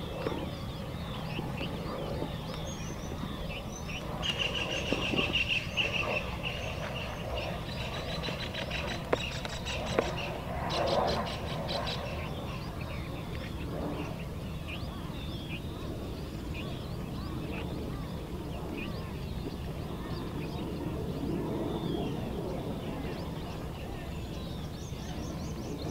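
Small birds chirping over a steady low background noise, with two sharp clicks about nine and ten seconds in.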